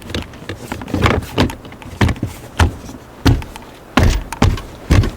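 Plastic trim cover being handled and pressed into its clips around a car's gear shifter: a run of irregular clicks and knocks, the louder ones in the second half.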